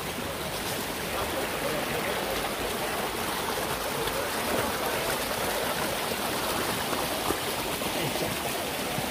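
Mountain stream running steadily, with a little faint talk in the background.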